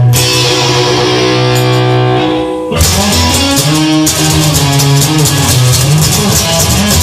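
Instrumental rock music: a held guitar chord rings for over two seconds, then the band comes back in with bass guitar and drums.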